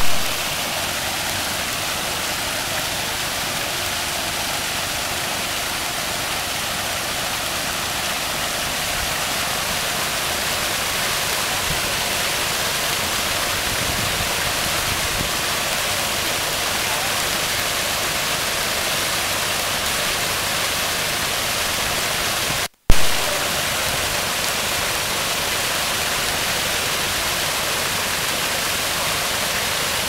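Rock-garden waterfall pouring over stacked stones in several small cascades into a pond: a steady rush and splash of falling water. The sound breaks off for an instant about three quarters of the way through.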